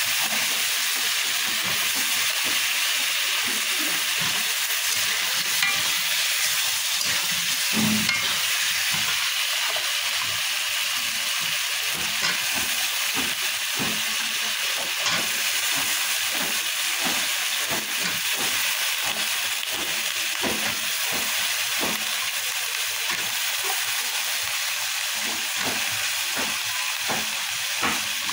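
Potato and eggplant pieces sizzling as they fry in spiced oil in a metal karahi, with a steady hiss. A metal spatula stirs and scrapes them against the pan many times over.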